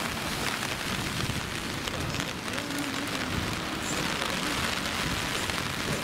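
Steady typhoon rain falling, an even hiss that holds without a break.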